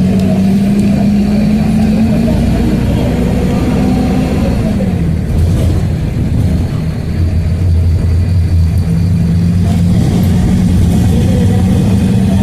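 A motor vehicle's engine running steadily. Its pitch rises slightly, drops about four seconds in, then climbs back up near the end, as the engine speeds up and slows.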